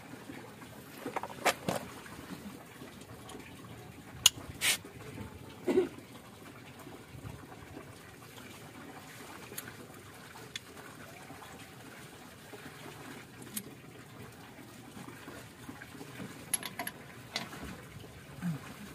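Scattered metallic clicks and knocks of hand tools worked on a car's rear wheel hub nut, with a socket and bar on the nut. A few sharp strikes come between about one and six seconds in, the loudest about four seconds in, and there is a short run of lighter clicks near the end, over a faint steady hiss.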